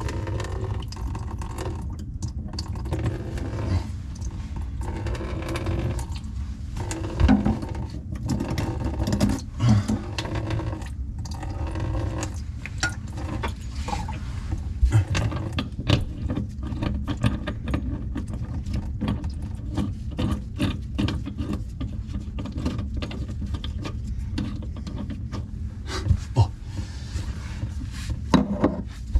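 Hand-tool work under a sink: irregular small clicks, scrapes and a few sharper knocks over a steady low rumble.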